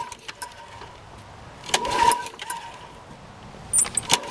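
Briggs and Stratton Quantum engine on a Toro Recycler lawn mower being pull-started with the recoil cord. A short pull about two seconds in and another starting near the end turn the engine over without it catching: a cold start on choke.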